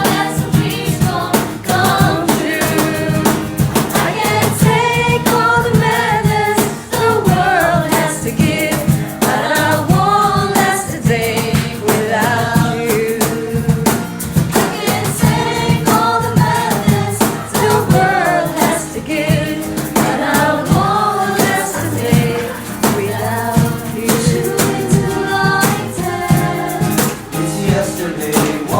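A group of carolers singing a song together with instrumental accompaniment and a steady beat.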